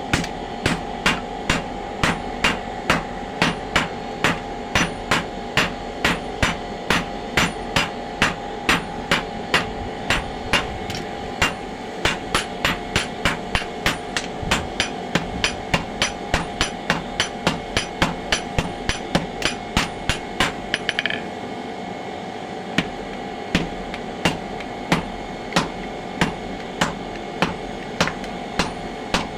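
Blacksmith's hammer striking metal in a steady rhythm, about two to three blows a second. The blows pause briefly about two-thirds of the way through, then resume.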